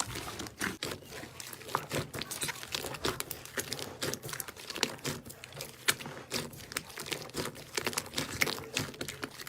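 Slime being squeezed and pressed by hand, giving a dense, irregular run of sticky crackles and small pops.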